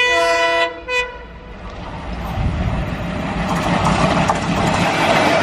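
Horn of an ALCO-built WDG3A diesel locomotive: one blast of under a second, then a short second toot about a second in. After that comes the train approaching at speed, the engine and wheel noise growing steadily louder.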